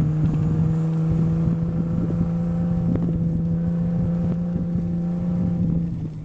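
Jeep engine running steadily, its note rising slightly, with scattered knocks and rattles. The engine sound drops away near the end.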